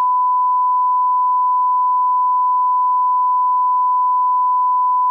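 Steady 1 kHz reference test tone accompanying colour bars: a single unwavering beep at one pitch that cuts off suddenly.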